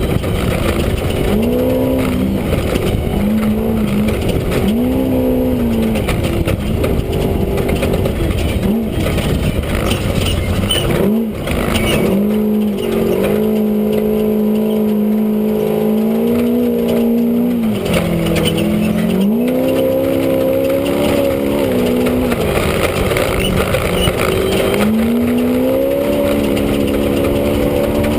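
Off-road race vehicle's engine heard from inside the car, its revs rising and falling again and again and holding steady for a few seconds midway. A heavy, constant rumble and clatter from the ride runs underneath.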